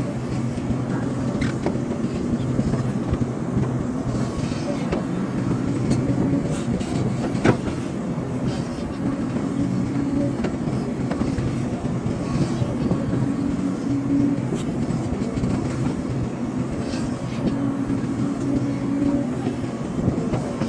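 Hydraulic excavator's diesel engine running steadily, with a few sharp knocks over it, the loudest about seven seconds in.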